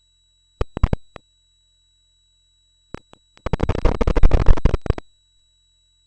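A few sharp clicks, then a quick run of rapid clicks lasting about a second and a half, over a faint steady high electronic tone.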